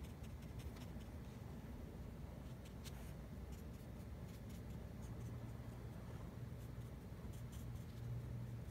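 Faint steady low hum with a few soft, scattered ticks and scratches.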